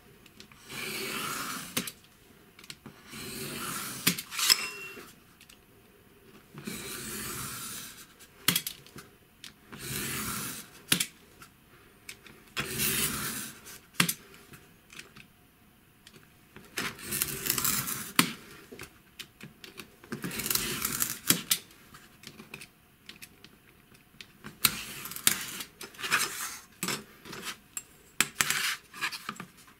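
Utility knife scoring a thin board along a steel ruler: about nine long scraping strokes, each a second or so, as the cut is deepened pass after pass. Sharp clicks and taps come between the strokes as the knife and ruler are handled.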